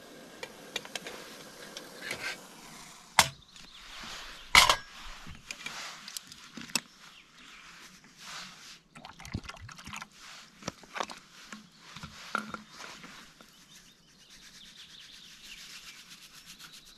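Metal camp cookware being handled: a pot and its gripper clink on a spirit-burner stove set, with two sharp metal knocks about three and four and a half seconds in and more small clicks after them. Near the end comes a soft rustle as instant mash flakes are shaken from a packet into the pot.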